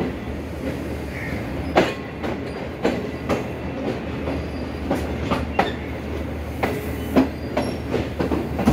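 Passenger train rolling slowly out of a station, heard from an open coach door: a steady low rumble with the wheels knocking at irregular intervals over the rail joints.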